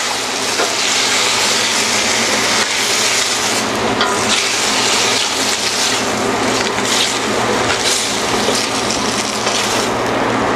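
White wine sizzling and bubbling steadily in a hot stainless braising pan of sautéed onions, carrots and celery, with a wooden spoon scraping the browned bits off the bottom: the pan being deglazed.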